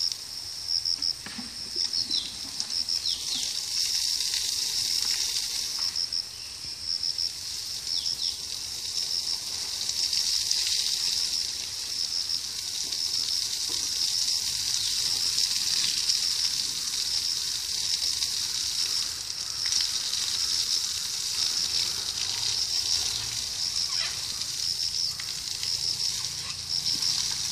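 Hose water spraying and hissing as it showers an elephant, over a steady high, pulsing trill.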